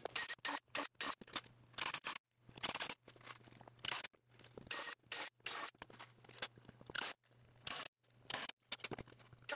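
Cordless drill/driver pre-drilling and driving screws through the jig's wooden rails into the plywood base. It comes as many short bursts that start and cut off abruptly.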